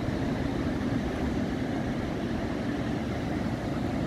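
Ocean surf breaking on a beach, with wind buffeting the microphone: a steady, low rushing noise.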